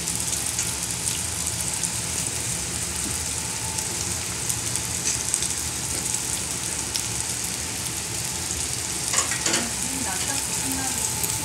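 Pork belly slices sizzling on a charcoal-heated grill plate, a steady hiss of frying fat with fine crackling, and a few sharp clicks about nine seconds in.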